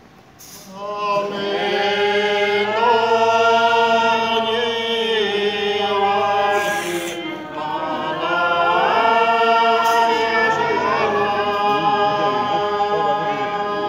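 A group of men and women singing a dance song together, unaccompanied, in long held notes that slide slowly between pitches. The singing begins about a second in, with a brief pause for breath near the middle.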